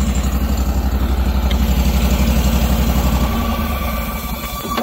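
Stump grinder's Kohler engine idling with a steady, even pulse, then being shut off and running down during the last second and a half.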